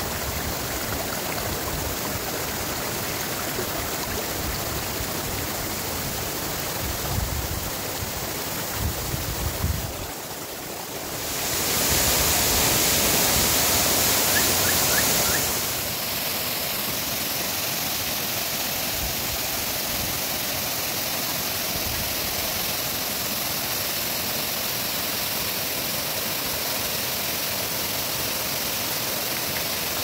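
Steady rush of falling and flowing water at a waterfall. After a brief dip near the middle it grows louder and brighter for about four seconds, then settles back to a steady rush.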